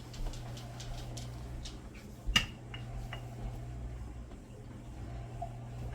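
Light taps and clicks of kitchen utensils on a counter while dough is being rolled, with one sharp clink a little over two seconds in, over a steady low hum.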